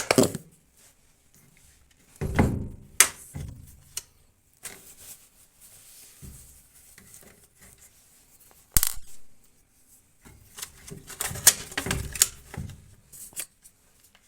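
Scattered clicks, knocks and clatter of hard plastic and metal parts of a washing machine's drain pump assembly being handled, with a few duller thumps among the sharp clicks.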